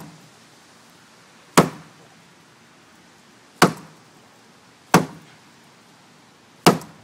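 A wine bottle held inside a shoe being banged heel-first against wood, four sharp thuds one to two seconds apart: the shoe method of driving the cork out of the bottle.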